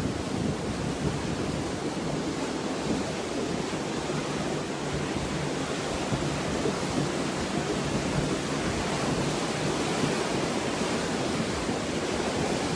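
Flood-swollen river rushing past, a steady, unbroken noise of churning water.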